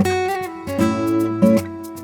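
Background music: acoustic guitar strumming chords, a new strum roughly every half second to second, each ringing out and fading.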